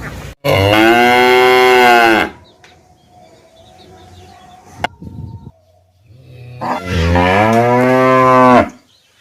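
A cow mooing twice: two long calls of about two seconds each, the second starting about seven seconds in, each dropping a little in pitch at its end.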